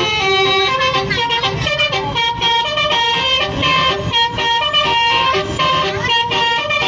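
Indonesian bus 'telolet' musical horn playing a quick melody of short stepped notes, several horn tones sounding together.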